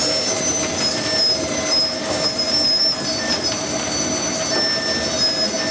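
Bakery dough moulder running: a steady mechanical drone with a constant hum, and brief high squeals coming and going.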